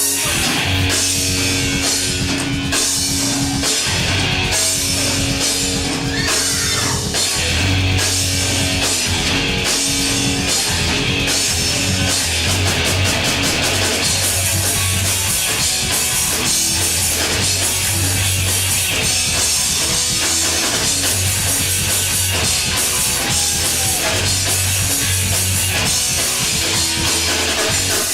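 Punk rock band playing live: distorted electric guitars, bass and a drum kit with crashing cymbals, with no singing.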